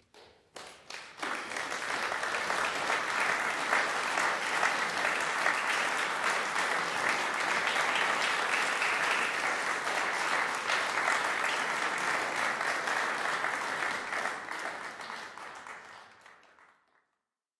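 Crowd applauding, a dense mass of clapping that swells in over the first second or two, holds steady, and fades out near the end.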